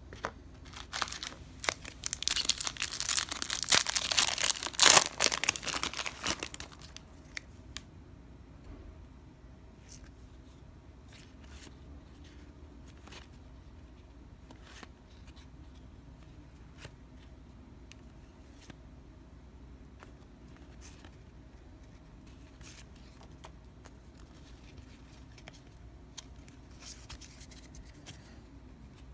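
A foil pack of baseball cards being torn open, its wrapper crinkling loudly for about five seconds. Then come faint, scattered clicks and rustles of the cards being handled.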